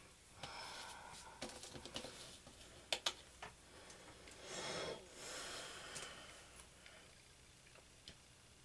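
Faint small clicks and taps of flat 3D dinosaur puzzle pieces being picked up off a table and slotted into the skeleton, with two sharp clicks about three seconds in and a stretch of soft rustling in the middle.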